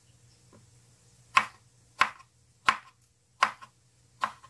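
Kitchen knife slicing eggplant on a wooden cutting board: five sharp knocks of the blade striking the board, about one every 0.7 s, beginning about a second and a half in.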